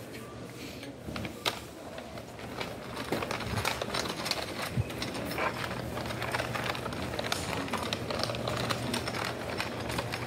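Plastic shopping basket rattling and clicking irregularly while being carried, getting busier and louder about three seconds in, over a steady low hum.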